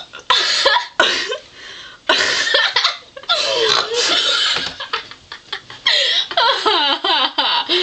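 A string of about five long, loud burps from a young woman who is full of gas from Pepsi mixed with fizzy carbonated candy, each drawn out with a wavering pitch and separated by short pauses.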